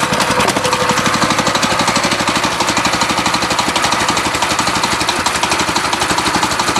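Small riding-mower engine of a home-built chain-drive moto mower idling with a fast, even chugging beat, not yet warmed up and running rough enough to shake the machine.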